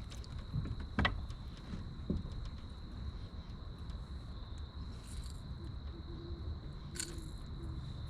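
Steady high-pitched insect trill over a low rumble, with a sharp knock about a second in and another near the end.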